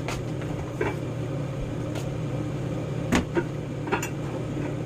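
Steady low hum of a running kitchen appliance, with a few light clicks and knocks of kitchenware being handled.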